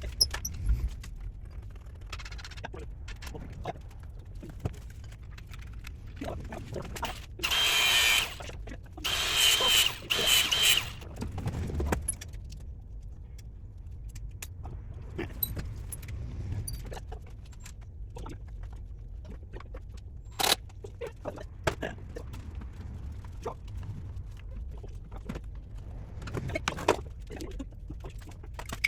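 Workshop work sounds: metal tools and parts clinking and knocking at irregular intervals, with three loud hissing or whirring bursts about a third of the way through.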